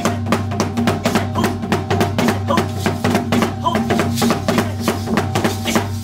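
Drum-led music: rapid drumbeats over a steady, low held note.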